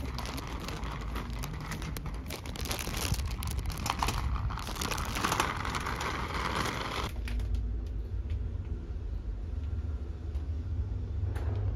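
Plastic grocery bag and a bagged salad crinkling and rustling as they are carried and handled, over a low steady rumble. The crinkling stops about seven seconds in, and the low rumble carries on.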